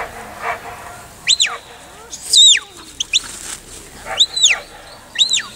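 A handler's herding whistle, blown as about five short notes, each rising and then falling in pitch, the loudest about halfway through. These are whistle commands steering a working Border Collie as it drives sheep.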